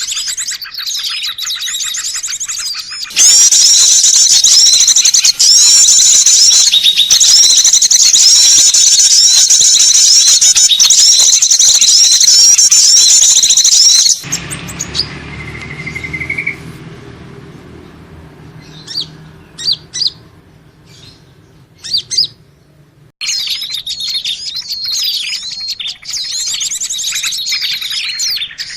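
Recorded lure calls of small songbirds: rapid, high-pitched chirping and twittering, very loud through the first half. About halfway through it gives way to a quieter stretch of scattered short calls over a low steady hum, then the dense twittering resumes near the end.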